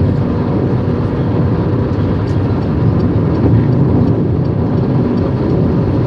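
Steady road and engine noise heard inside the cabin of a moving car, a deep even rumble with no change in speed.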